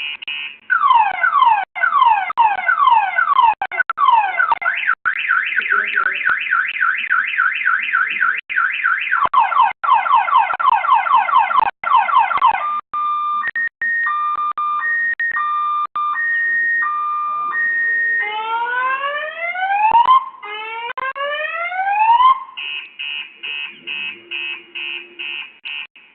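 Electronic car alarm cycling through its tone patterns: fast falling sweeps, then rapid chirps, then a two-tone alternation about halfway through, then rising whoops, and back to rapid beeping near the end.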